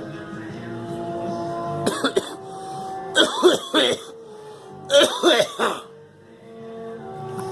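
A girl coughing in three bouts: two quick coughs about two seconds in, then two fits of three or so coughs each, about a second and a half apart.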